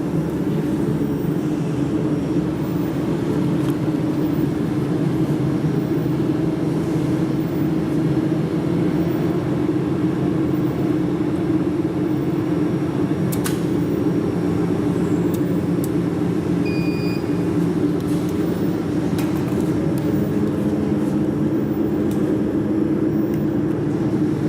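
Steady low machine hum. A few faint clicks come around the middle, and a short high beep about 17 seconds in.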